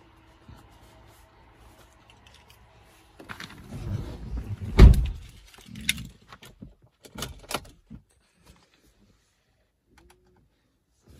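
Rustling and clunks of someone climbing into a car's driver's seat, with one heavy thump about five seconds in and a few lighter knocks after it. The sounds stop about eight seconds in.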